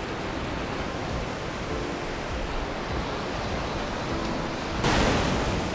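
Steady surf and wind noise, with a hand-held croaker fish croaking faintly: three short, low croaks about two seconds apart. A louder rush of surf or wind comes near the end.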